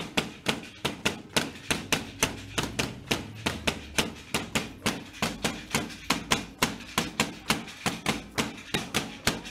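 Sharp percussive clacks in a steady rhythm of about three a second, keeping time for the masked devil dance, over a faint low hum.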